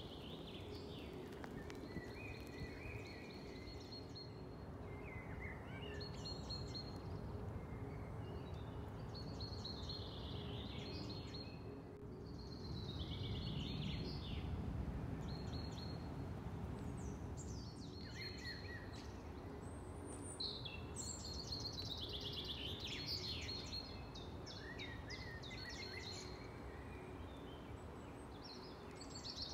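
Several songbirds singing in short repeated phrases and trills, over a steady low background rumble with a faint steady hum.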